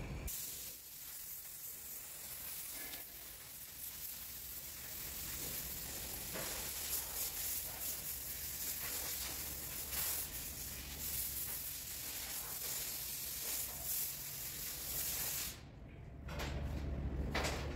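Flux-cored arc welding: the arc's steady sizzling crackle as a bead is laid, breaking off briefly near the end.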